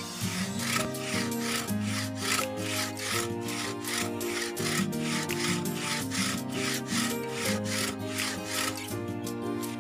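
Rhythmic rasping strokes on wood, about two to three a second, stopping near the end, over background music.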